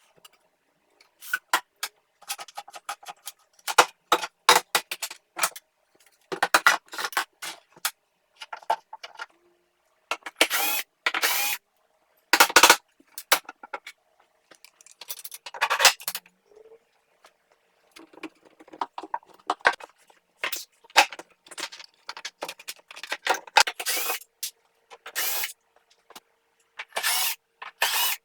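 A long run of short, separate bursts of power-tool noise with silent gaps between them.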